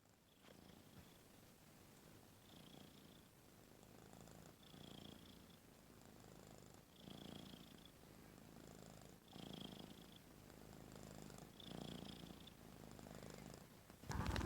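A sleeping cat snoring with its mouth open, faint and regular, one snore about every two seconds, each with a thin high whistle. A sharp knock just before the end is the loudest sound.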